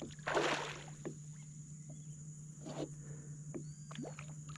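A hooked peacock bass splashing at the surface beside a kayak: one splash about a quarter of a second in, then a few small splashes and knocks.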